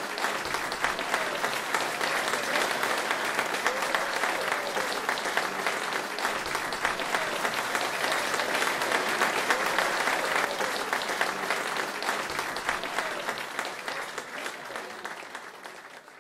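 Audience applauding, with a few voices in the crowd, fading out near the end.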